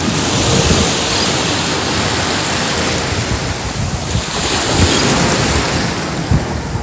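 Ocean surf breaking and washing up a beach, its hiss swelling and fading every couple of seconds, with wind buffeting the microphone.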